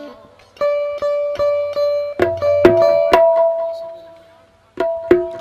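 Sindhi benjo (keyed banjo zither) playing an instrumental phrase of quick, repeated plucked notes, with a few dholak strokes under it. It breaks off briefly just before the end and then starts again.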